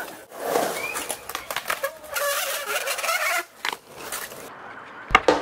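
Skateboard sounds on a concrete skatepark: wheels rolling and scattered clacks and knocks of the board, with a heavy thump near the end.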